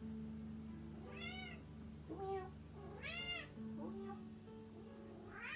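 Domestic cat meowing repeatedly, several short calls that rise and fall in pitch, the loudest two about a second and three seconds in.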